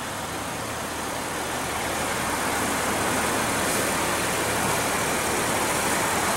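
Car engine idling steadily as a low hum, under a broad hiss that slowly grows louder.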